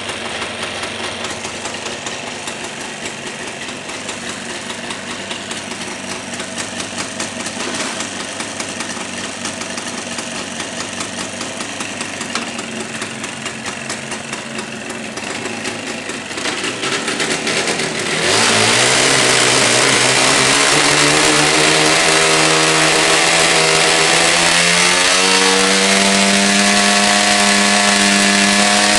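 Jawa motorcycle engine idling unevenly, then revved hard about eighteen seconds in. Its pitch climbs for several seconds and is then held at high revs.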